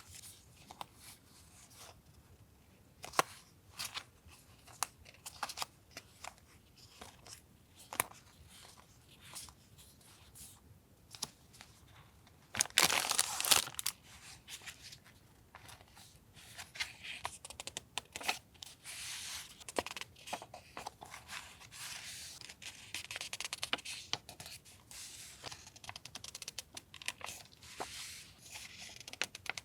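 Paper and sticker sheets being handled: scattered light taps and crinkles, a louder tearing rustle about 13 seconds in, then steady paper rustling through the second half.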